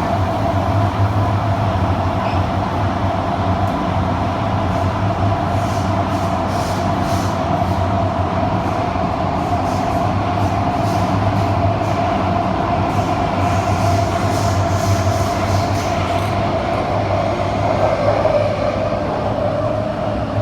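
KSF CT251 metro train running at speed, heard from inside the car: a steady traction hum and rumble, with bursts of rapid clicking and knocking from the wheels, typical of flat wheels. The hum's pitch dips slightly near the end.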